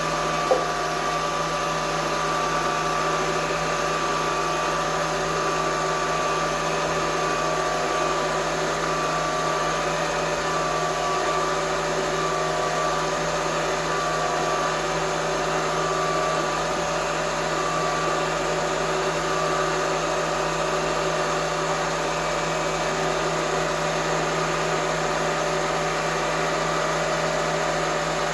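Vertical knee mill running steadily, its spindle turning a drill bit that is hand-fed into a metal part for a deep pecked hole; one short click about half a second in.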